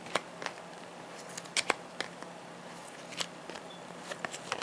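Pokémon trading cards in plastic sleeves being handled and shuffled by hand: an irregular scatter of light clicks and taps.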